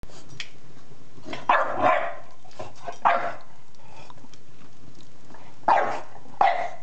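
Young English bulldog puppy barking at a log fire in the fireplace: five short barks, a pair about a second and a half in, one near the middle and another pair near the end.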